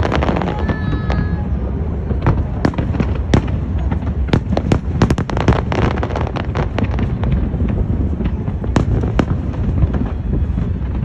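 Aerial fireworks exploding in a rapid, irregular barrage of sharp cracks and bangs over a continuous low rumble.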